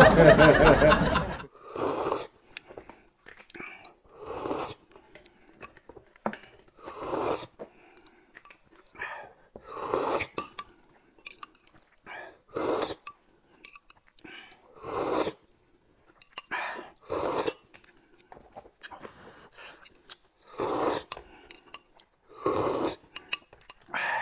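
A loud burst of noise in the first second or so, then people slurping a yellow drink off spoons: short, airy slurps about every two seconds, with quiet between.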